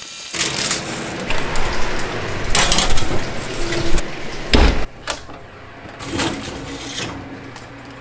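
Kitchen handling noise: aluminium foil crinkling and a foil-lined baking tray scraping and knocking on a wire oven rack, with several knocks and one louder thump about halfway. A low steady hum runs under the quieter second half.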